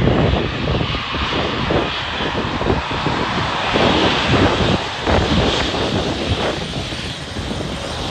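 Embraer E-Jet regional airliner taxiing close by, its two wing-mounted turbofan engines running at taxi power: a loud, steady jet rush with a low rumble and a hiss on top, starting abruptly and easing slightly near the end.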